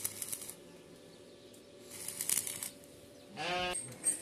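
Electric arc welding crackling in two short bursts, in the first half-second and again around two seconds in. A short animal bleat sounds about three and a half seconds in.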